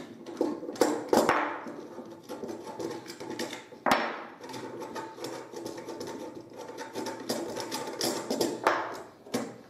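Metal clinks and knocks from the steel rods, tubes and bolts of a homemade portable grill being taken apart by hand, the loudest knock about four seconds in. A faint steady hum runs underneath.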